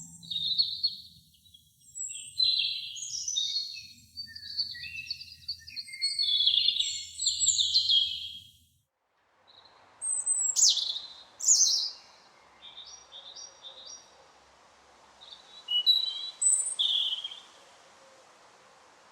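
Robin singing: fast, high, warbling phrases one after another. After a short break, a second recording with a steady background hiss brings sharp falling call notes, soft notes, and a couple more brief song phrases.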